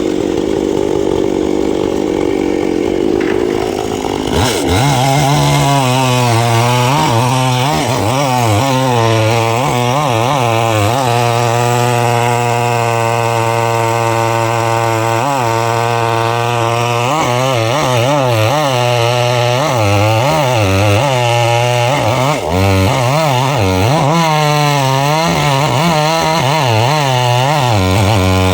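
Gasoline chainsaw revving up about four seconds in, then running hard with its pitch repeatedly sagging and recovering as it cuts through tree wood.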